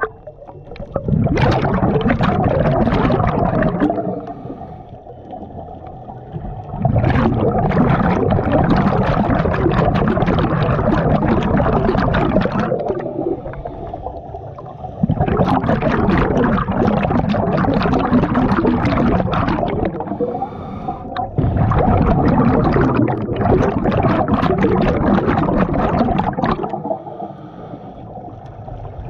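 A scuba diver breathing through a regulator, heard underwater through a head-mounted camera: exhaled bubbles rush out in four long bursts of several seconds each, with quieter gaps between them.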